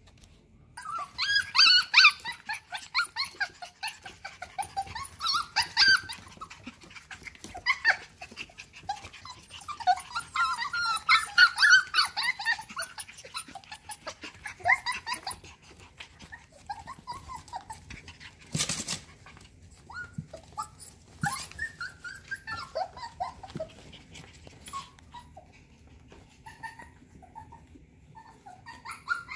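Cockapoo puppies yipping, whining and play-growling as they wrestle over a toy, busiest in the first half and sparser later. A single sharp knock about two-thirds of the way through.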